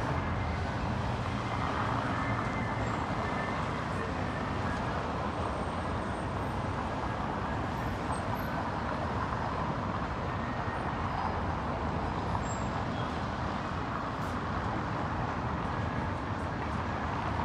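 Steady city street ambience, mostly road traffic noise from cars.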